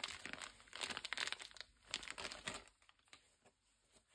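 Small clear plastic bag of spare laces crinkling as gloved hands handle it. The dense crackling dies down about two and a half seconds in, leaving a few faint ticks.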